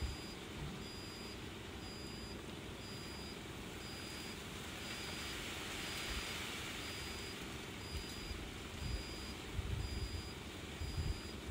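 Faint outdoor ambience: a steady soft hiss with a thin, high insect chirp repeating evenly, about once or twice a second. A few soft low thumps come near the end.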